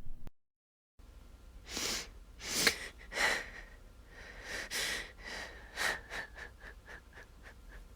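A woman sobbing without words. After a second of dead silence there are a few sharp gasping, sniffing breaths, then a run of short, quick, shuddering breaths that grow faster and fainter near the end.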